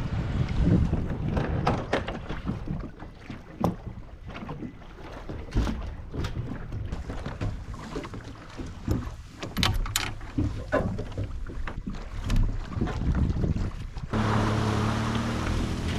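Kayak on the water: rumbling wind and water noise with many irregular knocks and clicks of gear against the hull. About two seconds before the end it cuts abruptly to background music.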